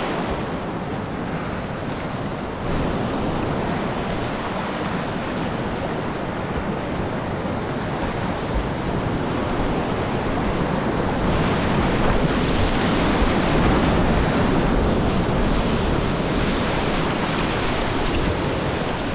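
Whitewater rapids rushing and churning around a kayak, a steady, loud rush of water, with wind buffeting the microphone.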